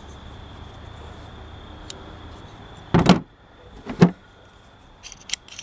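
Two sharp metallic clacks about a second apart, then a run of lighter clicks near the end, from a 1959 Buick's pot-metal door handle being worked by hand, its springs still good. A faint steady hum lies under the first half.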